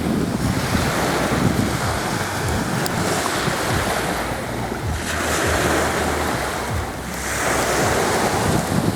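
Sea waves washing on the shore, the hiss swelling and easing as each wave comes in, with wind buffeting the microphone.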